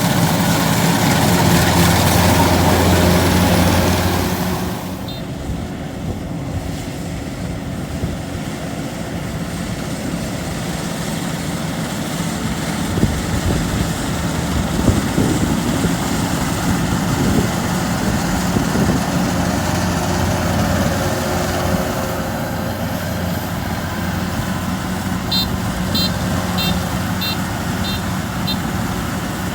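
Diesel engine of a Kubota rice combine harvester running steadily. It is louder for the first four seconds or so, then drops to a lower, even running level.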